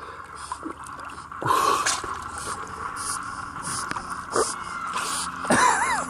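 Pool water sloshing and splashing at the surface as a Boston terrier paddles past, with uneven surges of splashing. A short wavering call comes near the end.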